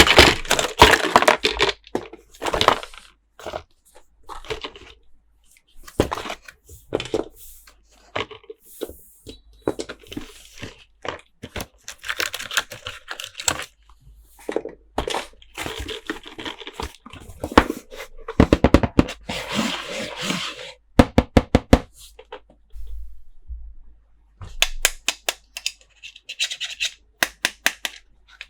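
Toy packaging being opened by hand: wrappers crinkling and tearing in irregular bursts, broken by sharp clicks, some in quick runs.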